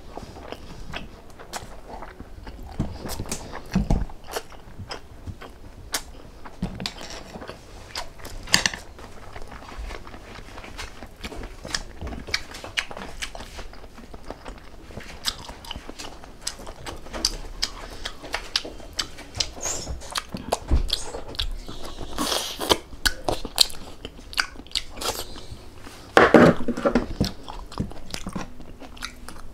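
Close-up eating sounds: a person chewing and biting food, with many small wet mouth clicks, and a louder burst of noise about 26 seconds in.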